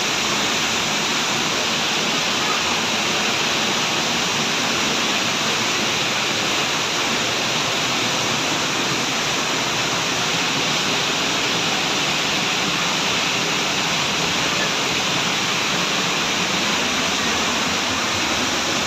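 Waterfall rushing: a steady, unbroken noise of falling water that does not change.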